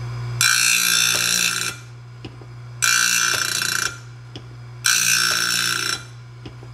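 Homemade bandsaw blade sharpener: the electric grinder motor hums steadily while the grinding wheel grinds a blade tooth in bursts about a second long, three times about two seconds apart, as the lever linkage drops the wheel onto each tooth in turn. The sharpener has just been adjusted to cut a little deeper.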